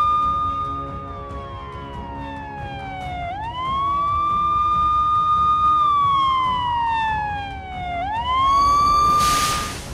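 Emergency siren wailing over a low rumble. Each cycle rises quickly to a high note, holds it, then slides slowly down, about every four and a half seconds. Near the end a loud burst of hiss comes in and the siren cuts off.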